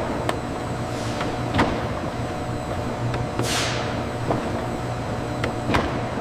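Industrial machinery running with a steady hum, a few sharp clanks, and a falling hiss of released air about three and a half seconds in.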